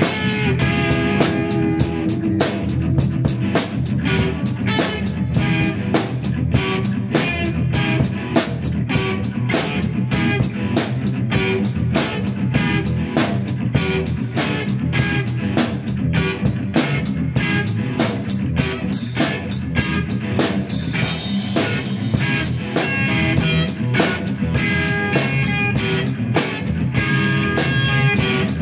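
Instrumental rock played by a four-piece band of lead guitar, rhythm guitar, bass guitar and drum kit, on a steady beat with no singing. A short burst of bright hiss, like a cymbal crash, comes about two-thirds of the way through.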